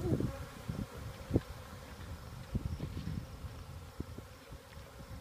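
A swarm of honey bees buzzing around an open hive box: a steady hum, the bees stirred up by being worked. Several short low thumps break in, the strongest about a second and a half in.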